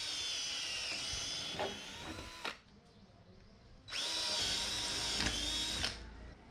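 Cordless battery-powered drill running in two bursts, the first about two and a half seconds long and the second, about a second and a half later, about two seconds long, with a steady whine.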